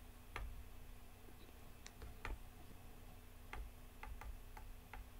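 Faint, irregular clicks of a computer mouse, about ten of them, over a low steady hum.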